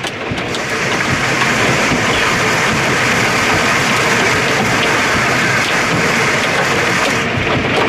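Hailstones of nickel to quarter size and heavy rain pelting down in strong wind: a loud, steady, dense patter of many small impacts.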